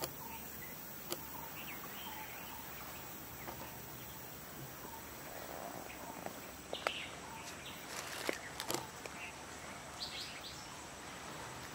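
Outdoor ambience: a steady background hiss with faint, short bird calls, and a run of sharp snaps and rustles in the second half.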